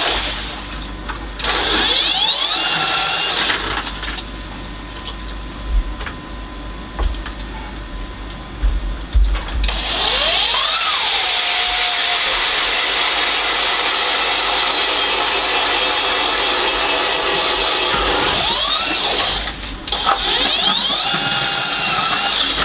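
Jiffy power ice auger drilling through the ice: its motor whine rises in pitch as it spins up, several times over. Between spin-ups there is a quieter stretch with a few knocks, then about nine seconds of steady drilling, a brief stop and another spin-up near the end.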